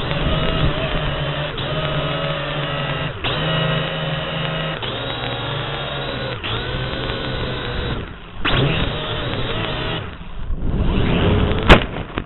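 Small quadcopter's electric motors and propellers whining steadily, heard through its own onboard camera as it comes down on automatic landing after losing its video link. The sound cuts out briefly about every second and a half. Near the end it turns rough and ends in one sharp crack as the drone hits a tree.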